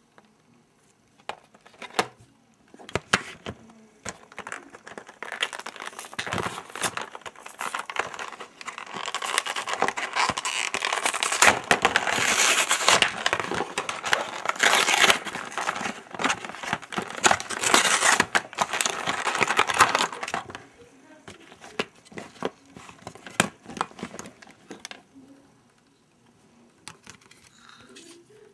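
Clear plastic blister pack and its cardboard backing being pried and torn open by hand: stiff plastic crinkling and crackling with many sharp clicks and tearing, heaviest through the middle stretch and thinning out in the last several seconds.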